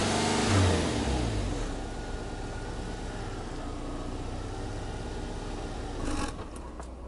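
Subaru Legacy Touring Wagon 2.0R's 2.0-litre boxer four-cylinder engine through its dual exhaust, falling back from a rev to a steady idle. About six seconds in, a short burst of noise is followed by a sudden drop in the engine sound and a few light clicks.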